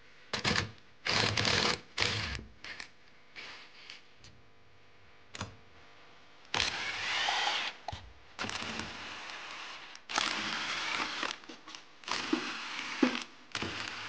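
Tools clicking and knocking as they are handled, then a cordless drill spinning out the ignition cover bolts of a Yamaha YZ250 two-stroke engine in a string of short runs of about a second each, from about halfway through.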